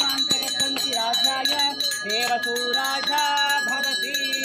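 A male voice chanting a mantra in a sing-song melody while a puja hand bell rings without pause.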